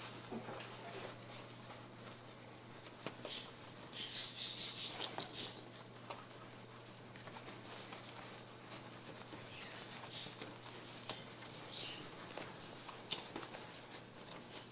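Soft rustling and scratching of capuchin monkeys scrambling and tumbling on a mesh playpen floor, with a few brief clicks.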